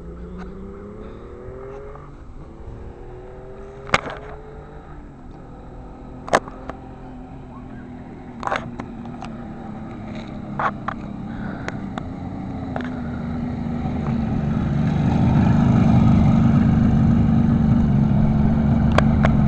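1972 Kawasaki H2's 750 cc two-stroke triple engine, first heard faintly far off, rising in pitch through several gear changes. It grows steadily louder as the bike approaches and runs loud and close near the end. A few sharp clicks cut through the engine sound in the first half.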